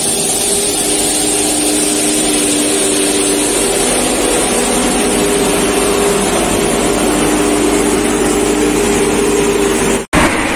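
Compact street-sweeper machine passing close by, its engine and rotating side brushes running with a steady drone and a few held tones; the sound cuts off abruptly near the end.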